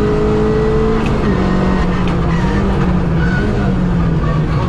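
Engine of a Suzuki Swift 1.3 GTi 4x4 rally car heard from inside the cabin under hard driving, held at high revs, then dropping sharply about a second in and rising and falling a little at lower revs for the rest.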